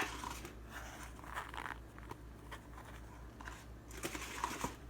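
Thick tile grout being stirred and scraped in a small bowl: faint, irregular gritty crunching and scraping with small clicks.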